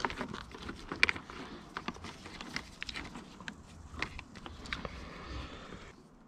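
Scattered light clicks and taps of tools and small metal and plastic parts being handled while wiring to an ATV battery's negative terminal. The sharpest click comes about a second in.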